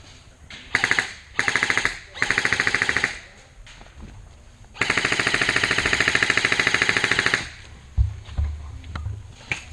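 Airsoft gun firing on full auto in four bursts of rapid, evenly spaced shots, the last and longest lasting about two and a half seconds.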